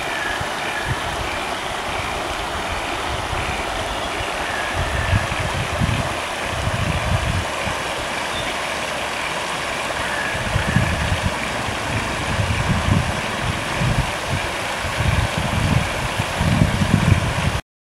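Shallow river water rushing steadily over a rocky riffle, with wind buffeting the microphone in low gusts at several points. The sound cuts off abruptly just before the end.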